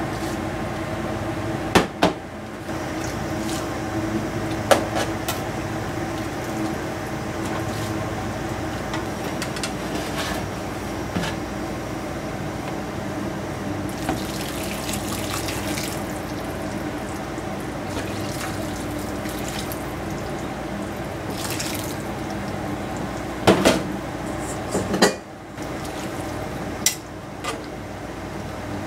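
Hot broth poured from a stockpot into a bowl of glass noodles and greens, with a stretch of running, splashing liquid about halfway through and several sharp clinks and knocks of pot and dishes, the loudest a pair late on. A steady hum runs underneath.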